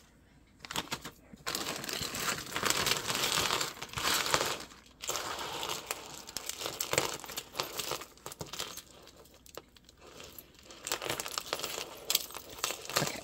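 Clear plastic bag crinkling as a tangle of beaded necklaces is pulled out of it and handled, loudest in the first five seconds and then on and off, with small clicks of beads and chain.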